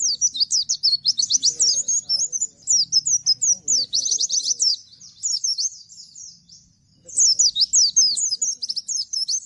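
Pleci (white-eye) of the Bustomi type singing its rapid 'nembak' song: fast runs of high, steeply falling notes. A long run is followed by a pause of about two seconds, then another run near the end.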